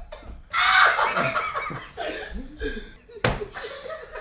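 People laughing hard, with a sharp knock or smack a little over three seconds in.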